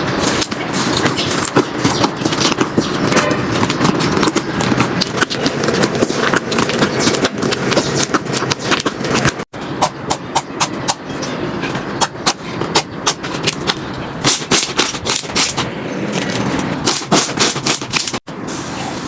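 Slime being squeezed and poked by hand, a dense run of sticky clicks and pops. The sound breaks off abruptly twice, about halfway through and near the end, where one clip cuts to the next.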